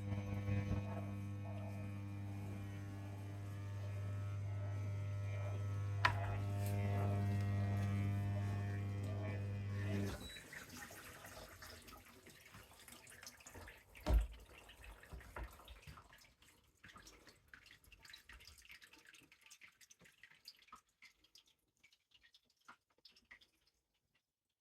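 Dishwasher giving off a loud, steady low electrical hum for about ten seconds, then cutting off suddenly. Afterwards come quieter running sounds and a single thump. The hum comes on after about 25 minutes of the wash cycle and keeps coming back, which is the fault the owner is recording.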